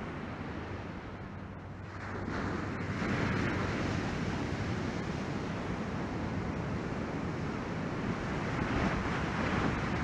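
Ocean surf from a typhoon swell breaking and washing in whitewater, with wind buffeting the microphone. The wash grows louder about two seconds in.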